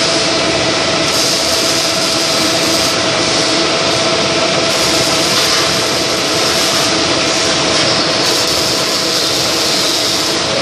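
Vertical milling machine running, its end mill cutting a flat on a metal fitting for a hex: a steady machining noise with a constant tone running through it.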